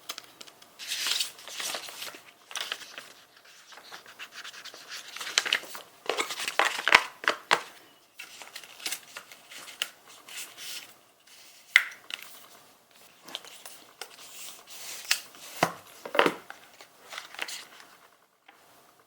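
Irregular rustling and crinkling of material being handled, like packaging or fabric, with scattered sharp clicks and taps.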